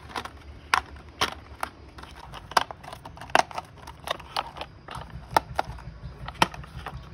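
Hard plastic toy school bus parts clicking and knocking together as the snap-fit body is pressed onto its chassis by hand, with no screws. About a dozen sharp, irregular clicks.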